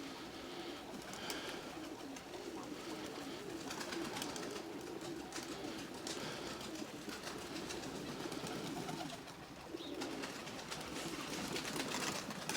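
Nikolaev pigeons cooing: repeated low, wavering coos that overlap one another.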